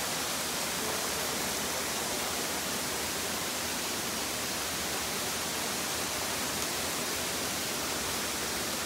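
Steady rush of running water, an even unbroken noise that does not rise or fall.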